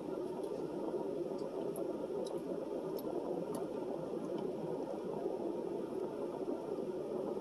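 A car's air conditioner blowing a steady hiss inside the cabin, with a few faint clicks as someone drinks from a plastic bottle.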